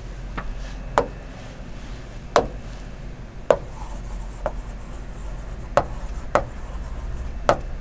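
Writing on a blackboard: sharp taps as the writing tip strikes the board, about one a second, with faint rubbing strokes between. A steady low electrical hum runs underneath.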